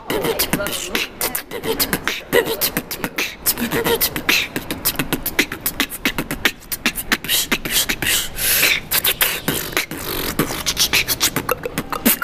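Woman beatboxing freestyle close to the microphone: a fast, unbroken run of percussive mouth sounds.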